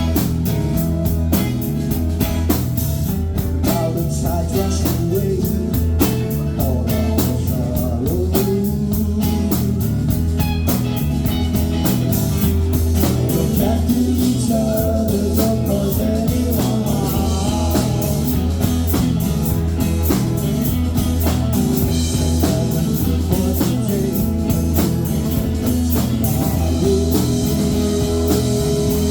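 A rock band playing a blues-tinged song, with electric guitar over a steady bass line and drums.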